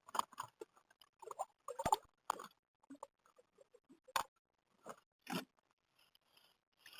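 Irregular light knocks, clicks and scrapes from gear being handled in a fishing kayak, with the sharpest knocks about two and four seconds in.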